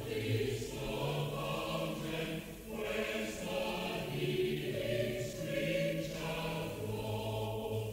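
A choir singing in long held chords, with breaks between phrases about two and a half and six seconds in.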